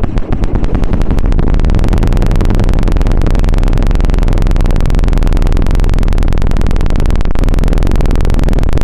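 An ear-scraping stick rubbed very fast against an ASMR ear microphone: the 'helicopter' ear-cleaning trigger, a loud, steady flutter of many quick strokes a second, heavy in the bass.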